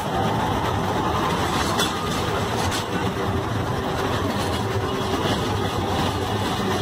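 A modern street tram rolling past close by on its rails amid street traffic, a steady rumble with no sharp knocks.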